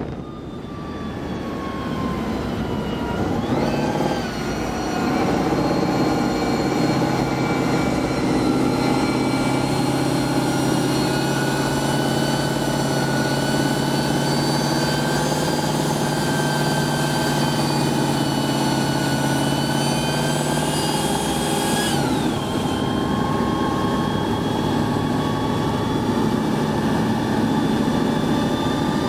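Tank driving at speed, its engine running under load with a steady high whine. The pitch climbs about four seconds in, holds, then drops suddenly about 22 seconds in.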